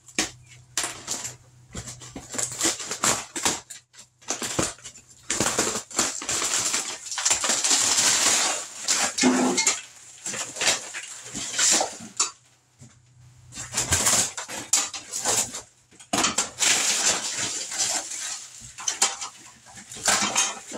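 Demolition noise: irregular bouts of scraping, cracking and clattering as old wood wall paneling and debris are pulled off and handled, broken by a few short pauses.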